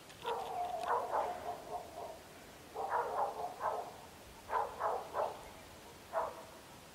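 Vervet monkeys calling: short, harsh, bark-like calls in four clusters of two to four, each cluster about a second and a half after the last.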